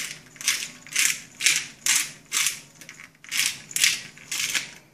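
Salt grinder twisted by hand, grinding coarse salt in short rasping strokes about two a second, with a brief pause partway through.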